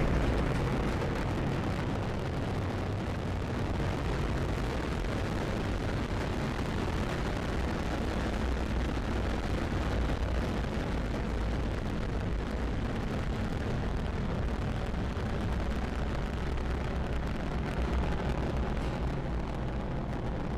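Falcon 9 first stage's nine Merlin engines firing during ascent, heard as a steady, deep rumbling noise.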